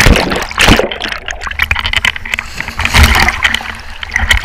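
Swimming-pool water splashing and gurgling right at the microphone, loud and irregular.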